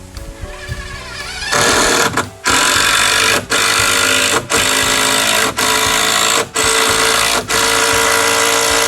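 Handheld power tool running in a string of bursts about a second long, with brief pauses between them, starting about a second and a half in. It is loud and buzzing, with a steady whine.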